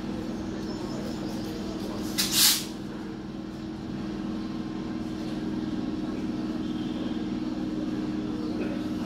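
Electric multiple-unit local train with a steady electrical hum carrying a few low, even tones. About two seconds in, a short loud hiss of released air from the train's brake system.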